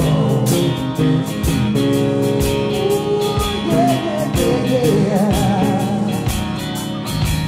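Live rock band playing an instrumental passage between sung lines: electric guitar, bass guitar and drum kit, with steady drum hits throughout.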